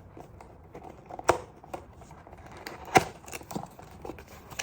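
A newly unboxed light-stand tripod and its packaging being handled: scattered sharp clicks and taps, two louder ones about a second in and near three seconds in, over faint rustling.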